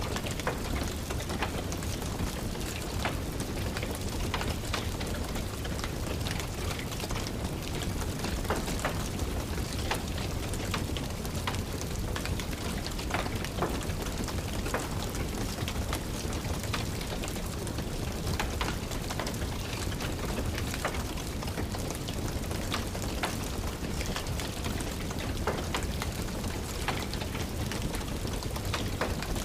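Steady rain with the crackle of a wood fire in a fireplace: frequent sharp pops and snaps scattered over an even hiss.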